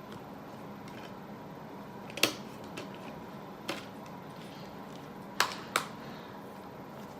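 Sharp plastic clicks from a DVD/Blu-ray case being handled: one about two seconds in, a softer one a second and a half later, then two in quick succession.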